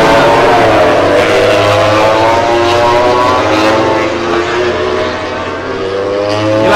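MotoGP racing motorcycles' four-cylinder engines running at high revs as they ride past, their notes falling and rising in pitch several times. The sound eases a little about five seconds in and builds again near the end.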